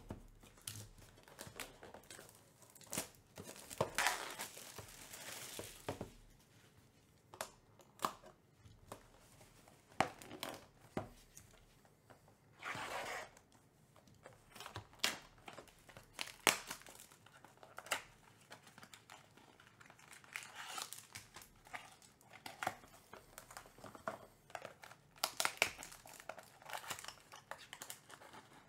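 Plastic wrapping and cardboard of a sealed trading-card box and its packs being torn open and handled: a run of irregular rips, crinkles and light taps, with longer rustles about four seconds in and again around thirteen seconds.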